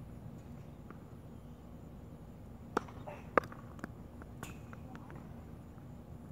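Tennis serves on a hard court: sharp pops of racket on ball and of the ball bouncing on the court. Two loud pops about half a second apart come near the middle, the second the loudest, then a few fainter ticks.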